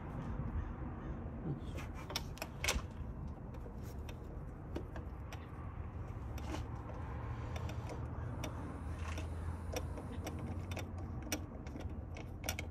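Scattered light clicks and clinks of hands handling the intake tube and its hardware at a supercharger inlet in an engine bay, over a steady low background rumble.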